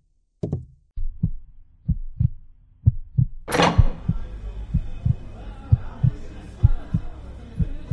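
Heartbeat sound effect: a steady run of low, dull thumps, the narrator's racing heart. About three and a half seconds in, a sudden swell rises over it, leaving a dense bed of background sound beneath the continuing beats.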